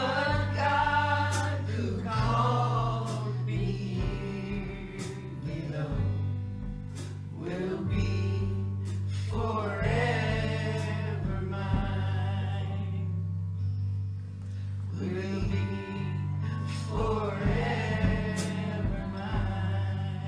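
Gospel worship song: sung vocal phrases of a few seconds with short breaks between them, over a sustained bass line and scattered light percussion hits.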